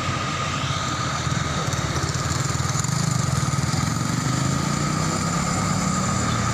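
Tour bus's diesel engine running, growing a little louder about a second in.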